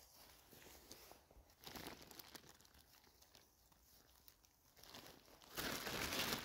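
Mushrooms being handled and their stems trimmed with a knife: soft crinkling rustles and small crunches and clicks, with a louder stretch of rustling near the end.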